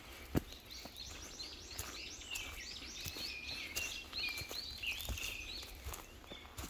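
A bird singing a fast, jumbled run of chirping notes, over a low rumble with a few footstep crunches on the path.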